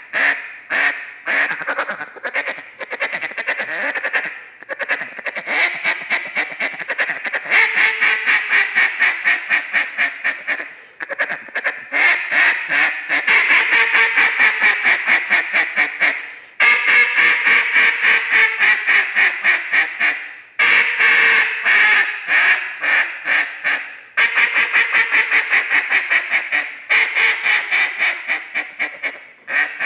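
Acrylic duck call (Levey Cut, with a black insert) blown through a run of calling: strings of quacks in sequences that trail off, and fast runs of short notes, with short breaks between sequences.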